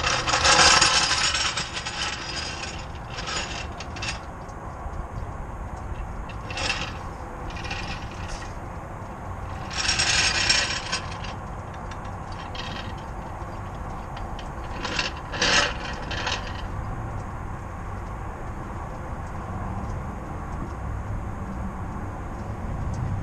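Several short scraping, rubbing bursts over a steady low rumble, picked up close to a car's wheel.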